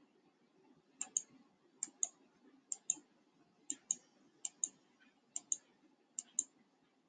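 Computer mouse button clicked seven times at a steady pace, about once every 0.8 s. Each click is a quick pair of ticks as the button is pressed and released, advancing a slide's animation step by step.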